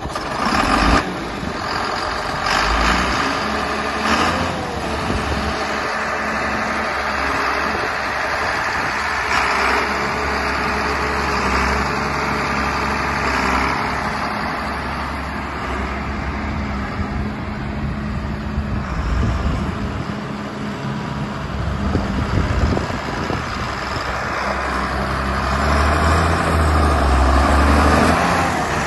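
John Deere 4455 tractor's six-cylinder turbocharged diesel engine running steadily as the tractor is driven around, growing louder near the end.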